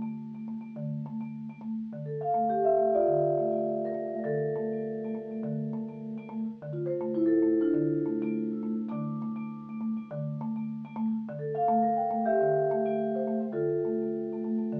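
Majestic vibraphone and a marimba played together by one player with yarn mallets. A steady repeating figure of low notes runs under longer, overlapping ringing notes higher up.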